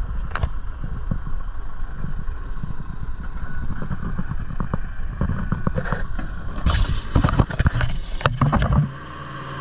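Construction machinery running: a heavy, uneven rumble with many knocks and clatters, busiest in the last few seconds, then a steadier engine hum near the end.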